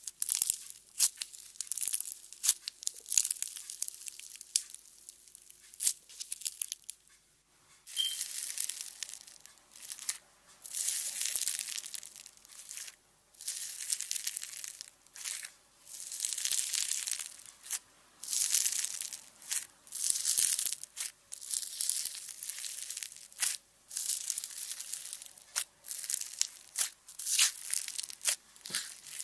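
Slime being squished and stretched by hand in repeated bursts every second or two, with sharp little clicks and pops between them.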